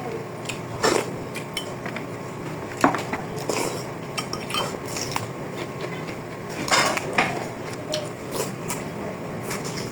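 Cutlery clinking and scraping against dishes in scattered, irregular knocks, the loudest about a second in and again around seven seconds in.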